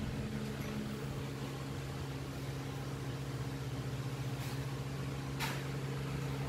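A steady low mechanical hum, with two faint short clicks about four and a half and five and a half seconds in.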